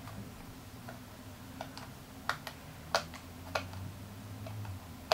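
Irregular small sharp clicks and ticks, roughly one every half second, from a screwdriver turning the battery-compartment screw in a plastic multimeter case. A low steady hum sits underneath.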